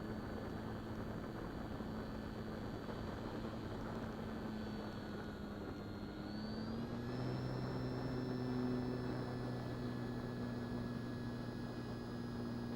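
Onboard sound of the Durafly Excalibur RC plane's electric motor and propeller in flight, a steady whine over wind rush. About two-thirds of the way through, the pitch rises and holds a little higher as the throttle is opened up.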